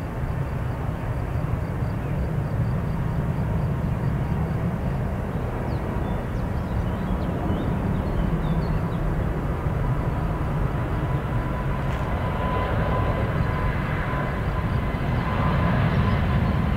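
Airliner jet engines running: a steady low rumble with a steady whine on top, the whine and the noise growing louder over the last few seconds.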